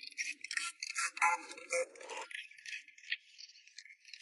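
Rattling, clicking and scraping of an LCD TV's plastic casing and screws as the back cover is taken off, with the busiest handling in the first two seconds.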